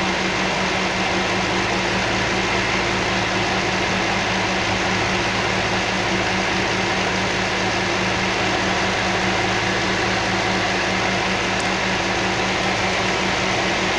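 Toyota 3UZ-FE 4.3-litre V8 idling steadily at operating temperature, its heads freshly rebuilt after burnt valves, running evenly the way a V8 should. The electric radiator fans are on, blowing a steady rush of air.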